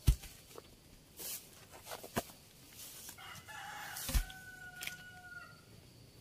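A rooster crowing once, one long drawn-out call from about three seconds in until near the end. Around it are a few sharp knocks and thumps, the loudest one just at the start.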